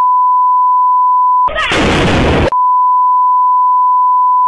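Censor bleep: a steady pure 1 kHz tone covering the audio. About a second and a half in it breaks for roughly a second of loud, harsh noise, then the tone resumes.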